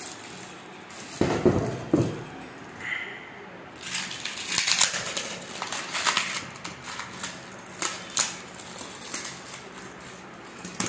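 Utility knife slicing through cardboard and tape wrapped around a metal seat frame, with cardboard tearing and crackling in a quick run of scratchy strokes. There are a couple of knocks from the parts being handled about a second and a half in.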